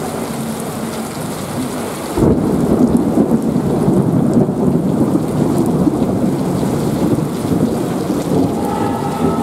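Heavy rain pouring down on a street, and a thunderclap breaking about two seconds in. The thunder goes on as a loud, low rumble.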